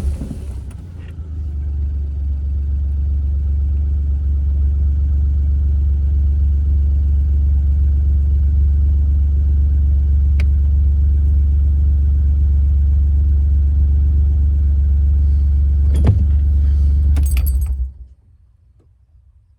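John Deere Gator utility vehicle's engine running steadily as it is driven, then shut off near the end: a couple of clicks and a jingle of keys, and the engine noise stops abruptly.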